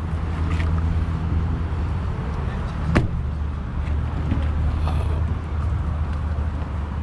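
Steady low mechanical hum, with one sharp click about three seconds in.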